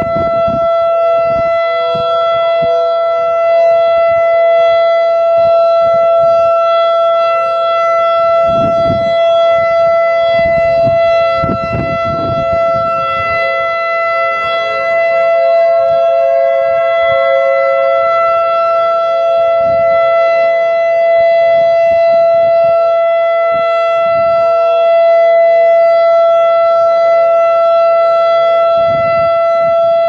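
ASC i-FORCE 1600 electronic outdoor warning siren sounding its alert signal: one loud, steady tone held at a constant pitch. A few low rumbles of noise come and go underneath it.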